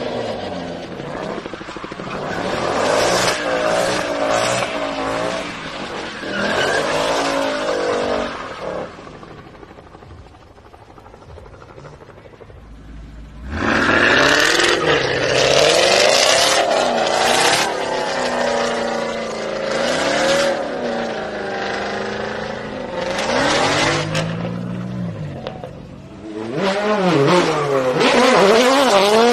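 Racing car engines revving hard and accelerating in a string of separate clips. An open-wheel single-seater comes first, then a Ford Mustang from about halfway through, then a Ford Fiesta WRC rally car revving near the end. The engine pitch rises and falls with each blip of the throttle, with a quieter stretch about a third of the way in.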